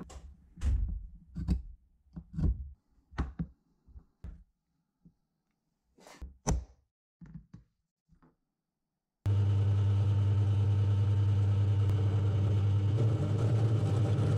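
Aluminium bar and metal tools handled and set down on a work mat, giving a run of short knocks and clicks. About nine seconds in, a bench drill press's electric motor starts abruptly and runs with a steady hum.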